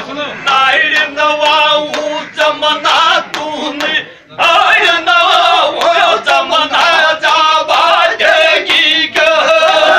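Men singing a Gujjar dhamal folk song, with sharp beats on a large hand-held frame drum (chang). The singing breaks off briefly about four seconds in, then resumes.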